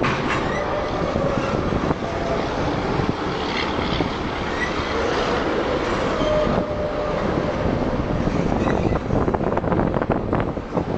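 Freight train cars rolling past at close range, a continuous rail rumble with wheels clicking over rail joints, thicker in the last few seconds, and brief faint squeals from the wheels.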